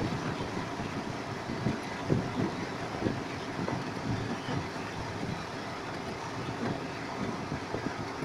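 Storm noise: a steady rush of rain and running water, with gusts of wind buffeting the microphone in irregular low thumps.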